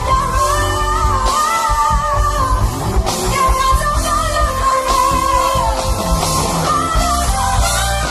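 A woman singing a pop song live, holding long sustained notes, over a full band with bass, drums and guitar.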